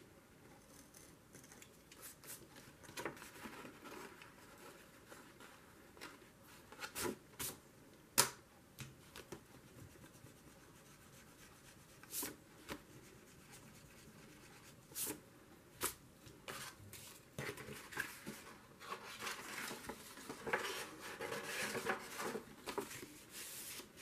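Snap-off craft knife cutting a slot through a painted watercolour paper page: soft scraping cuts and paper handling, with scattered sharp clicks, busier in the last few seconds.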